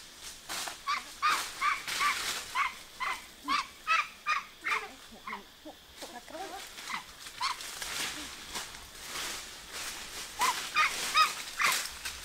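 Domestic fowl calling: a quick run of short, pitched calls, two to three a second, then a second short run near the end, with scattered rustling clicks.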